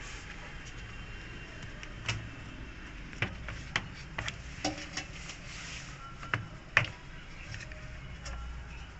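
A string of sharp clicks and knocks, about ten of them from about two seconds in, with the loudest near the seventh second: hand work with parts and tools on a front-load washing machine.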